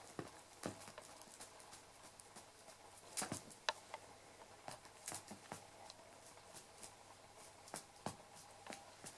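A kitten playing with a feather wand toy on a fabric sofa: scattered soft taps and scuffs of paws and claws on the upholstery and the feathered toy, loudest in a quick cluster about a third of the way in.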